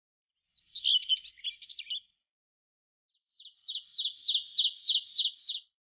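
A small songbird chirping: first a jumbled twitter of high notes, then after a short pause a fast run of about a dozen sharp, even chirps, roughly five a second.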